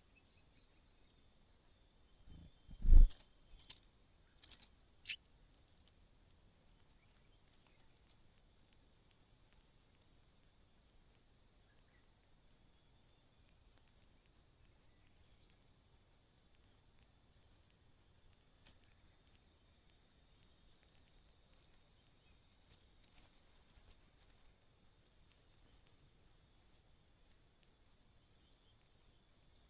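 A sudden thump about three seconds in, with a few clicks after it, then a long run of short, thin, high cheeps repeating about once or twice a second: a nestling chirping.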